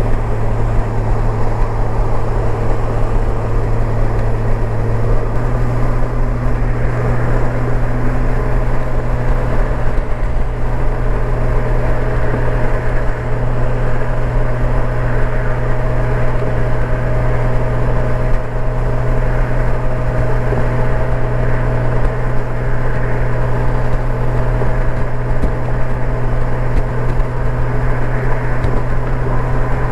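Honda Gold Wing's flat-six engine at steady cruising speed, with wind and road noise. A low, even drone that steps up slightly in pitch about five seconds in.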